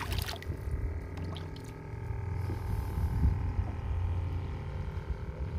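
Water splashing briefly as a redfish is let go by hand, then a low, steady rumble.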